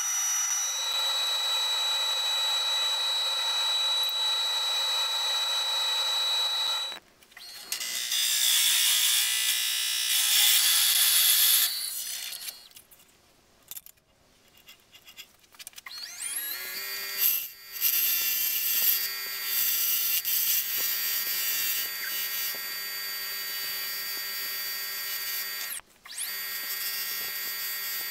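A wood lathe running with a steady whine while sandpaper hisses against the spinning wood. After a cut, turning tools scrape and shave the spinning blank, the loudest part. Partway through the lathe falls quiet and spins up again with a rising whine, then runs steadily under the tool's cutting.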